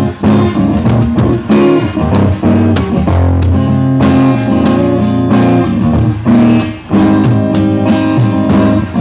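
A band playing: drum kit struck with sticks under guitar and bass guitar.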